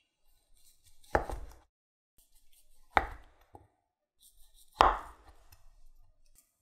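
Chef's knife pushing down through a block of mozzarella cheese and knocking on a wooden cutting board: three cuts, a little under two seconds apart.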